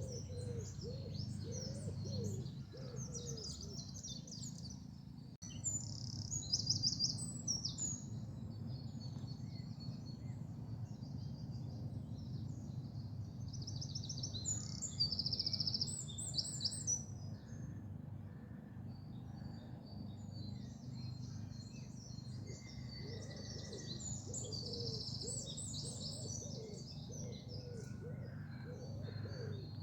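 Several woodland songbirds singing and twittering in quick high trills and chirps, with a low repeated cooing at the start and again in the second half, over a steady low rumble.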